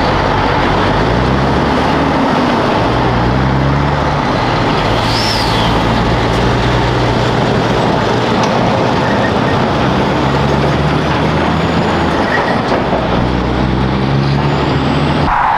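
Heavy truck diesel engine pulling away under load, its note climbing in steps, over steady traffic noise.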